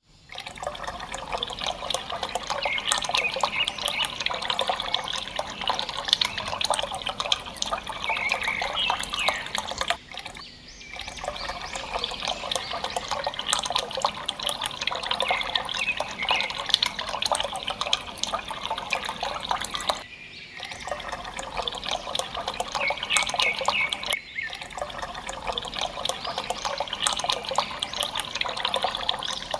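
Running water splashing and trickling, with many small clicks and splashes in it. It breaks off briefly three times, at about ten, twenty and twenty-four seconds in.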